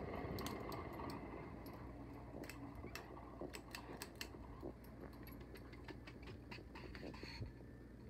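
1997 Hunter Original ceiling fan running, a faint steady low hum, with scattered light clicks and ticks.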